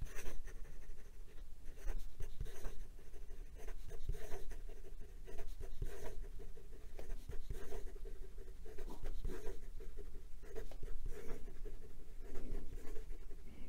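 Leonardo Furore Salt fountain pen's 1.1 mm stub nib scratching across lined notebook paper in quick, irregular strokes as a word is written over and over. The nib was dressed on micro-mesh to give it a little feedback.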